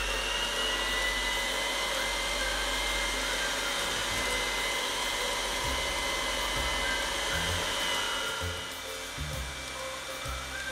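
Electric hand mixer running steadily at speed, a whirring motor with a high whine, its beaters whisking egg yolks and sugar together in a glass bowl. The whine eases a little near the end.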